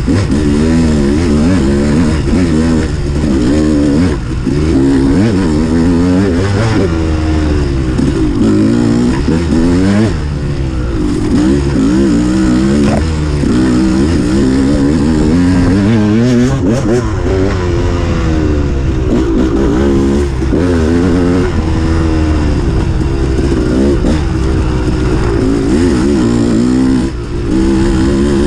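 Dirt bike engine heard from the rider's position, revving up and dropping back again and again every second or two as the throttle is worked and gears are changed.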